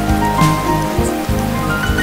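Steady rain falling on a wet hard surface, with scattered drops splattering, mixed with soft background music of held low notes.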